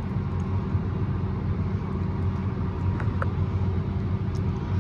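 Case IH 315 Magnum tractor's engine running steadily, a low even drone heard from inside the cab.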